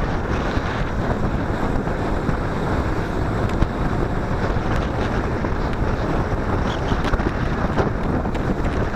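Wind noise on the microphone of a camera riding on a moving WSK motorcycle, over the steady running of its single-cylinder two-stroke engine.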